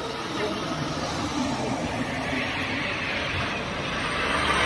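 Road traffic: a van and cars driving past on the street, growing louder near the end.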